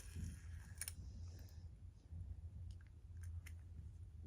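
Faint clicks and rustling from small plastic fidget toys being handled, with one sharper click a little under a second in, over a steady low hum.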